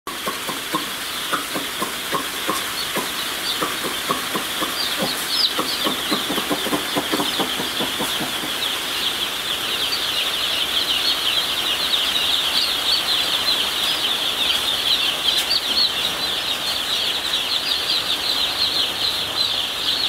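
A shed full of day-old broiler chicks peeping all at once, a dense high-pitched chorus that grows fuller about halfway through. Soft taps sound through the first few seconds.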